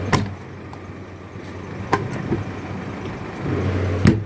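Refrigerated box doors being shut: a sharp clunk just after the start and a louder one near the end, with a lighter click between. A steady hum from the running refrigeration unit drops away after each clunk.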